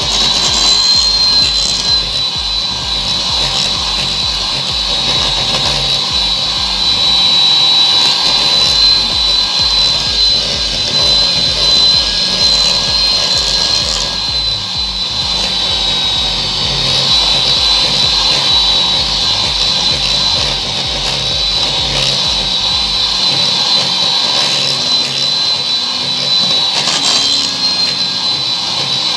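Electric hand mixer running steadily with a high motor whine, its beaters creaming margarine with sugar and salt in a glass bowl until soft and pale.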